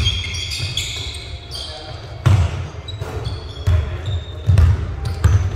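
Basketball bouncing on the court in irregular thumps, the loudest about two and a half seconds in and again near the end, with short high squeaks and voices over it.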